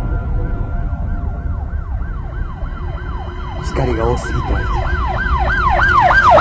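Emergency-vehicle siren sweeping rapidly up and down, about two sweeps a second, growing louder toward the end over a steady low rumble.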